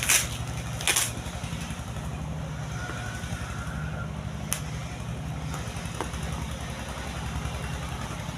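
A small engine idling steadily, a low even pulsing hum. Two loud bursts of crinkly package rustling come within the first second, and a single sharp click comes about four and a half seconds in.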